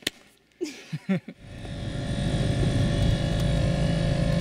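Inside a UAZ Patriot's cabin on the move: steady engine and road noise with the heater fan running, a din that sounds like it is falling apart. It sets in about a second and a half in, after a click and a few short squeaks.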